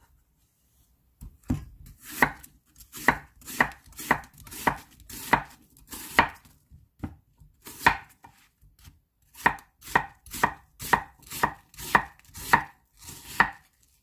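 Chef's knife slicing a white onion on a wooden cutting board: a steady run of sharp knocks as the blade goes through and strikes the board, about two a second, with a short pause a little past the middle.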